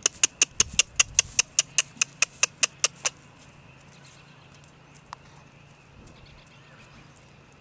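A rapid run of about fifteen sharp tongue clicks, about five a second for three seconds, made close to the microphone to urge a young horse to move. One more single click follows a couple of seconds later.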